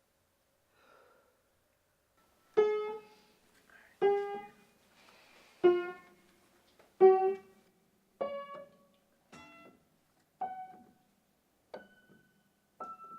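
Piano played slowly, one single note at a time, about every second and a half, each note ringing out and fading. The notes grow softer toward the end.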